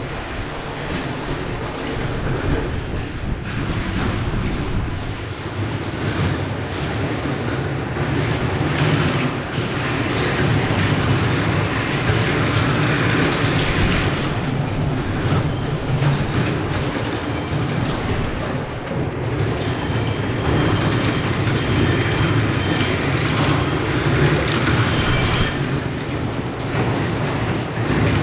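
Factory production-line machinery running: steady, loud mechanical noise with continuous rattling.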